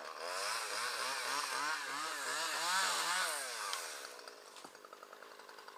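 Small two-stroke chainsaw revved up and down several times, its pitch rising and falling, then dropping back to idle about four seconds in.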